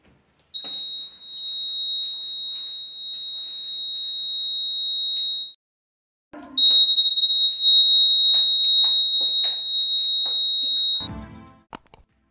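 Buzzer of a homemade remote-control door alarm sounding a high-pitched steady tone twice, each about five seconds long, with a second's pause between. Faint clicks run under the second tone, and a few knocks come near the end.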